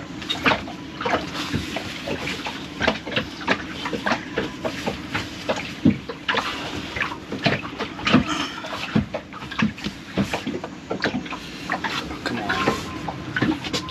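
Irregular clicks, knocks and light rattles of small metal parts and a bolt being handled and worked by hand on a bilge pump, over a steady low hum.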